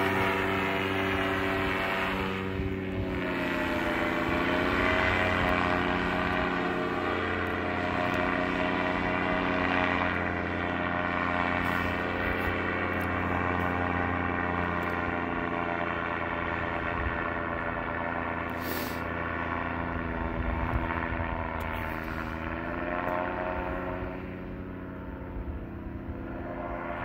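Paramotor engine and propeller droning steadily overhead in flight, dipping briefly in pitch about three seconds in and again near the end as the throttle eases.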